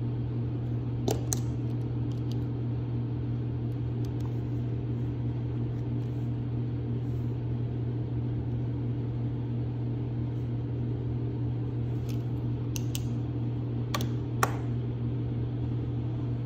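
Steady low mechanical hum, like a fan or small appliance motor running, with a few light clicks: one about a second in and two close together near the end.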